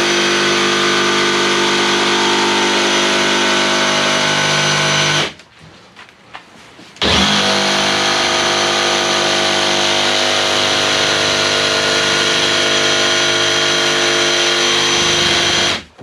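Cordless DeWalt XR jigsaw running steadily as it cuts a waterproof flooring plank, in two long runs with a pause of under two seconds in the middle.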